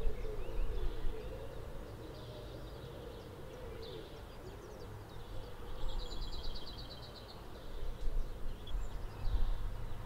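Small birds chirping, with a fast trill of short repeated notes about six seconds in, over a low rumble of outdoor background noise.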